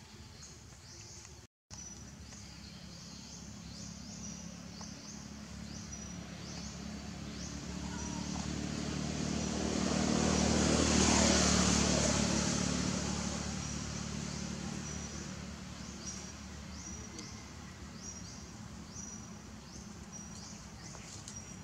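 A motor vehicle passing by, its engine hum and road noise swelling to a peak about halfway through and then fading away. Behind it, a short, high chirping call repeats about once a second.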